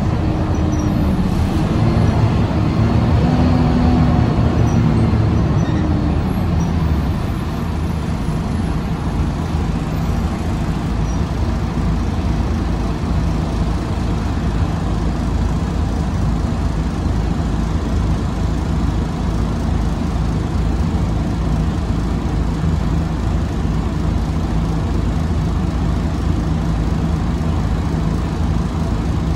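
Noisy ride inside a 2013 Karsan Avancity S Plus articulated city bus: a steady low engine and road rumble throughout. A pitched engine drone wavers in the first several seconds and then settles.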